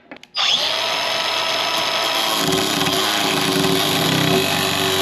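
Angle grinder grinding on a steel transmission kickdown band. It starts abruptly about half a second in and runs steadily, with a lower-pitched hum joining about halfway through as the disc bites.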